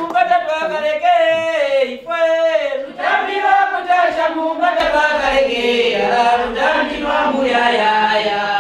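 People singing a chant together, the voices held and sliding up and down in pitch.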